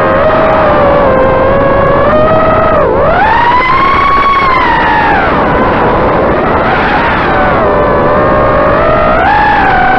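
The RCExplorer Baby tricopter's three brushless motors and propellers whine in flight, heard from the onboard camera. The pitch follows the throttle: it dips sharply about three seconds in, climbs high over the next two seconds, settles, and rises again near the end.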